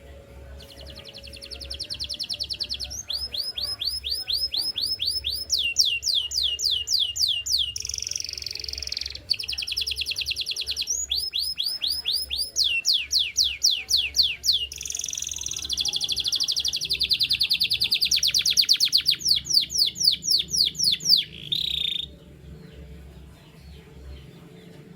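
Canary singing: a long song of rapid trills, each phrase a fast run of the same high note repeated many times, switching to a new note pattern every second or two, then stopping about three seconds before the end.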